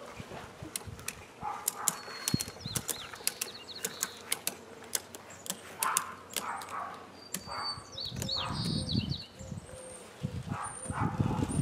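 Ratchet strap being cranked tight around a wooden beehive: a run of sharp ratchet clicks through the first half. Wind gusts buffet the microphone twice in the second half.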